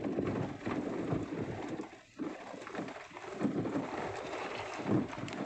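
Wind buffeting the phone's microphone, with rumbling noise from riding over rough, sandy ground. The noise dips briefly about two seconds in.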